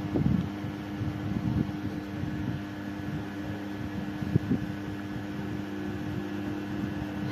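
A steady low machine hum, with soft knocks and rustles scattered through it and one sharp click about four and a half seconds in.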